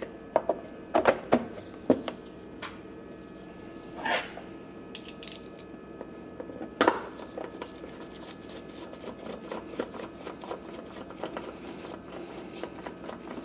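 Hand work on a portable generator's open plastic housing: scattered clicks and knocks of a tool and parts, with one loud clack about seven seconds in, then light, rapid ticking in the last few seconds, over a faint steady hum.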